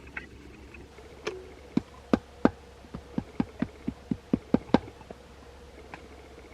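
A run of about a dozen sharp knocks, coming faster toward the end, over a faint steady hum.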